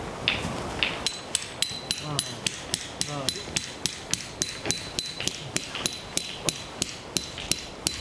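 Tent pegs being hammered in at the base of a canvas tipi: a fast, even run of sharp ringing strikes, about three to four a second, beginning about a second in.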